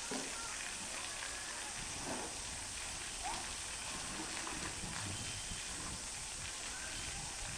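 Steady outdoor hiss with faint, distant voices coming and going; no loud knocks or calls stand out.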